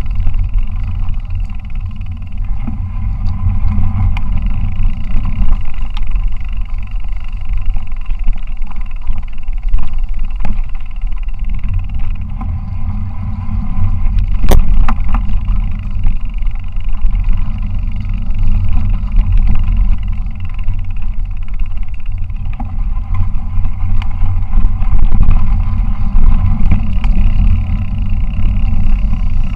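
Wind buffeting a handlebar-mounted camera's microphone while a 29-inch mountain bike is ridden along a dirt track, with its tyres rolling over the ground. It is a loud, steady rumble, with a single sharp knock about halfway through.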